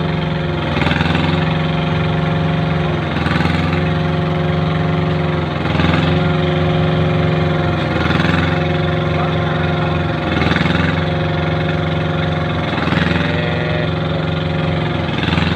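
Small engine driving a concrete kerbstone-forming machine, running steadily and loud. Its pitch dips briefly about every two and a half seconds, with a faint knock each time, as it takes load in a repeating cycle.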